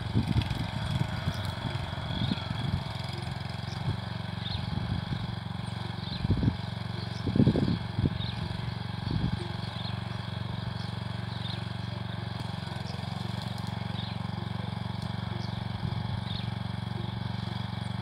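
Small petrol rotary tiller's single engine running steadily as its tines churn through dry soil, with a few heavier low thumps in the first half.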